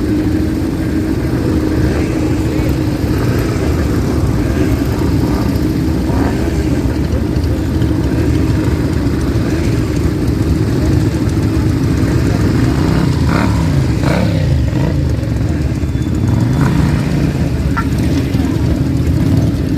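Vintage and classic motorcycle engines running close by, one holding a steady idle while others rev up and down several times in the second half.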